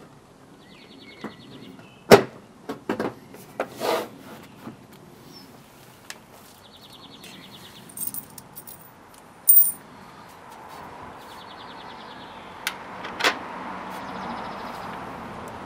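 Scattered knocks and light metallic clinks as a plastic snorkel with threaded studs is pushed and shifted into place against a Mitsubishi Delica L400's front wing. Most of the knocks come in the first five seconds, with a bright metallic clink about eight and nine and a half seconds in.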